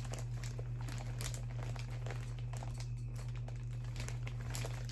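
Plastic bags and fidget toys rustling and crinkling as they are rummaged through, with scattered small clicks, over a steady low hum.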